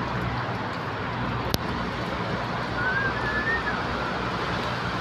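Steady outdoor street noise of traffic with a low hum, a single sharp click about one and a half seconds in, and a brief high wavering chirp near the middle.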